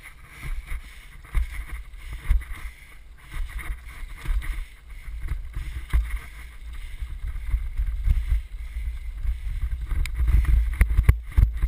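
Wind buffeting a helmet-mounted action-camera microphone while moving along the trail, with a continuous low rumble and scattered knocks from the dryland sled rig rolling over the ground. The knocks come more often near the end.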